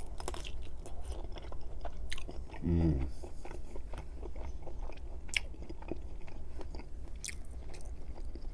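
Close-miked biting through a cheese sausage's casing with a snap, then chewing with scattered sharp mouth clicks and a brief low hum about three seconds in.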